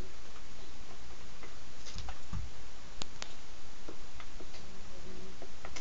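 Nerf FireStrike dart blaster being handled and fired: a soft thump about two seconds in, then two sharp clicks close together and a few fainter ones, over a steady hiss.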